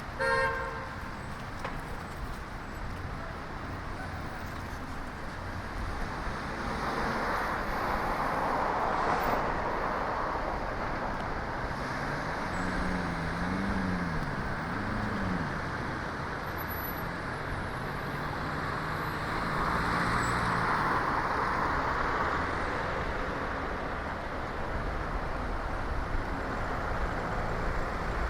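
City street traffic heard from a bicycle: a short horn-like toot just after the start, then cars passing twice, about 8 and 21 seconds in. Between the two passes, a vehicle engine's low tone wavers up and down.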